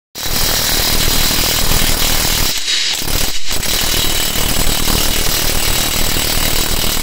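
Makita TW001G 40V max XGT cordless impact wrench hammering on a wheel nut: a fast, continuous stream of impact blows, easing twice briefly a little before halfway.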